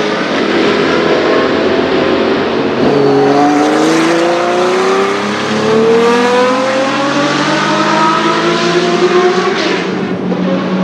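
Porsche 917 racing car's air-cooled flat-12 engine at full throttle, pulling away out of a corner. The note climbs steadily in pitch, is cut by an upshift and climbs again.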